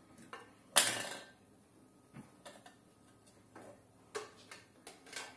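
Plastic toy saucepan knocked about by a baby: one sharp clack about a second in, then a scatter of lighter plastic taps and knocks.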